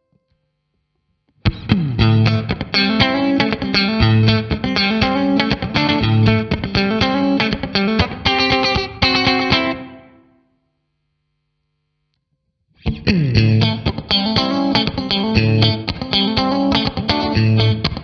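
1997 Fender Stratocaster with single-coil pickups, played through a NUX MG-30's Roland JC-120 amp simulation, strumming funky rhythm chord stabs. It plays one phrase that starts about a second and a half in and fades out around ten seconds. After about two seconds of silence, a second phrase begins.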